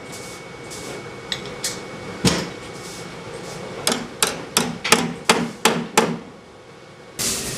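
A sharp knock, then a run of seven sharp knocks at about three a second, like hammer blows. Near the end a loud steady noise starts abruptly.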